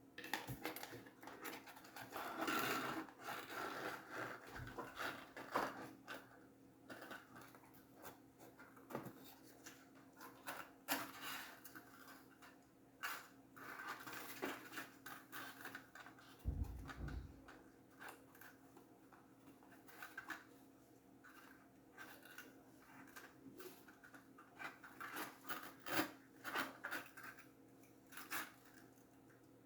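Cardboard pieces being handled and worked by hand: irregular scratching, scraping and light taps, with a brief low thump about halfway through.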